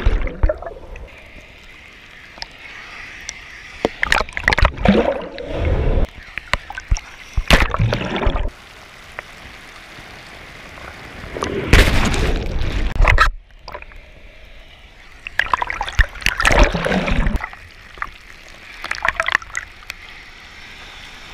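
Seawater splashing and sloshing over a camera held at the surface in breaking surf, in loud irregular bursts a few seconds apart as waves wash over it, with quieter rushing water between.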